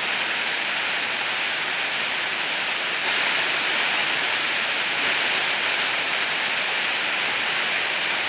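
Waterfall rushing, a steady even roar of falling water that does not change.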